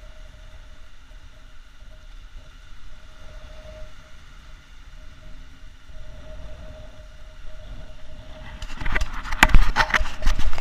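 Low steady background with a faint continuous hum, then about nine seconds in a run of loud, irregular knocks and rustling close to the microphone.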